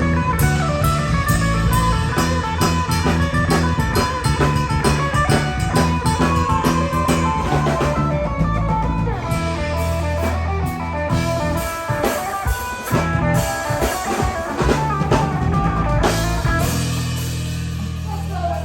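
Live band playing an instrumental intro jam: electric guitar over bass and a drum kit, with a steady rock beat.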